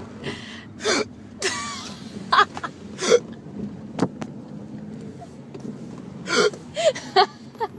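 A person making fake hiccup sounds: a string of short, unevenly spaced throat and gulp sounds, some with a bit of voice. It is an unconvincing imitation.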